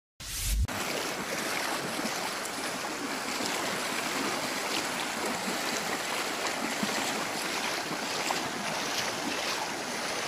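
Fast-flowing muddy floodwater rushing past in a swollen river, a steady wash of noise. A brief low thump on the microphone about half a second in.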